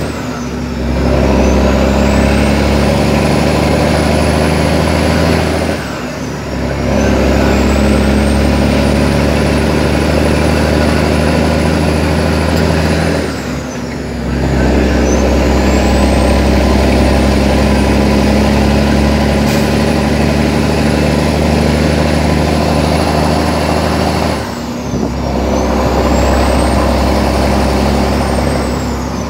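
International 9900i truck's diesel engine pulling steadily through the gears, heard from inside the cab, with a high turbo whistle. Four times the engine drops off briefly for a gear change, at about 1, 6, 14 and 25 seconds in; each time the whistle falls away, then climbs back as the engine pulls again.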